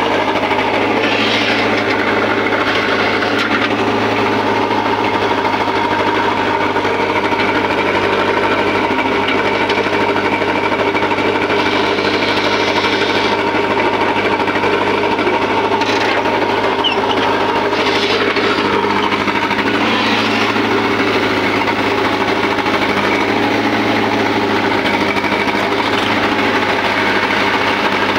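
Tractor's diesel engine running steadily, heard close from the driver's seat.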